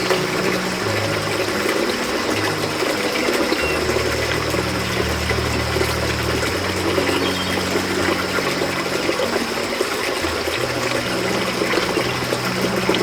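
Steady rushing, water-like noise, with slow, low background music notes changing underneath it.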